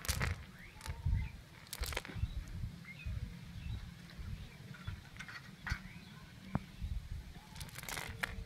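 Hands working a fine-mesh fishing net on concrete while picking fish out of it: soft rustling with scattered sharp clicks and taps. Faint bird chirps sound in the background.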